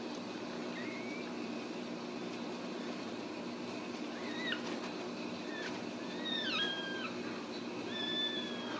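Ragdoll kittens mewing while they nurse: about half a dozen short, high-pitched mews from about halfway through, over a steady low hum.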